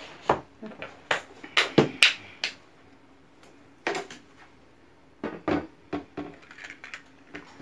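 Dishes and a tray being handled: scattered clinks and knocks, several close together in the first two and a half seconds, then sparser.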